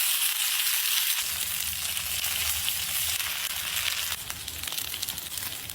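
Pieces of fish frying in hot oil, a steady sizzle with scattered small crackles.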